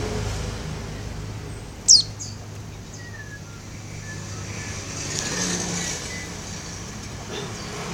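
Pleci (white-eye) giving one sharp, high call that falls steeply in pitch about two seconds in, with a few faint chirps after it. Under it is a low traffic hum that fades over the first second or so.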